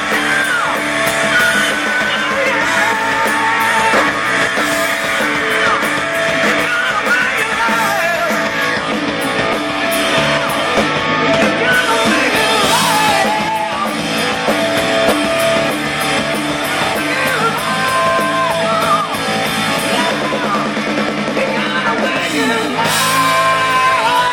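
Rock music: an electric guitar plays a lead with sliding, bending notes over a full band with drums.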